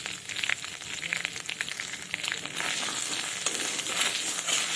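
Spices and ginger paste sizzling in hot oil in a kadai, with quick crackles through the sizzle; the sizzle grows denser and a little louder about halfway through.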